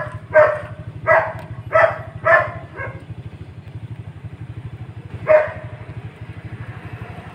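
Small dog barking in short yaps, five in quick succession over the first three seconds and one more about five seconds in, over a steady low throbbing hum.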